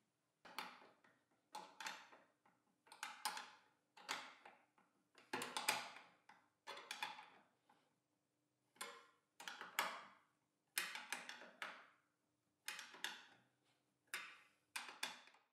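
Ratcheting wrench tightening the bolts on a folding outfeed table's metal brackets: about a dozen short runs of rapid ratchet clicks, one run per stroke of the wrench.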